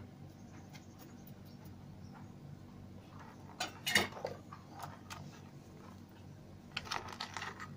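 Spoon clicking and scraping against a plastic tray as snail eggs are scooped up: a few short clicks, the loudest about four seconds in, and a quick run of them near the end.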